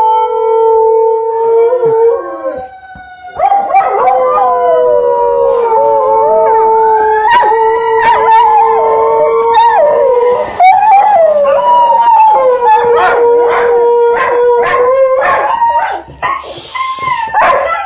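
Two dogs howling together in response to a fire truck siren: one long, steady howl held underneath while a second dog's howls slide up and down over it. In the last few seconds the howling breaks into short yips.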